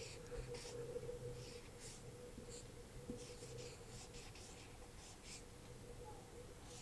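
Felt-tip marker writing on a whiteboard: faint, short squeaky strokes, one after another, as letters are written.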